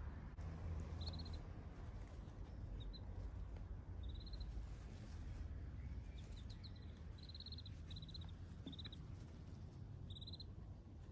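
Ducklings giving soft, short trilling peeps, about a dozen brief high calls scattered irregularly, over a low steady rumble.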